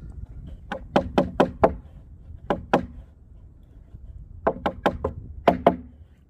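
A hammer striking the wooden planks of a raised garden bed frame: about thirteen sharp knocks in four quick runs of blows.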